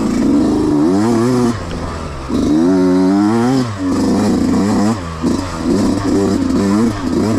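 Yamaha YZ125X two-stroke dirt bike engine revving up and down, the pitch rising and falling several times as the throttle is worked, with a short drop in level a little past two seconds in, as the bike climbs a short uphill.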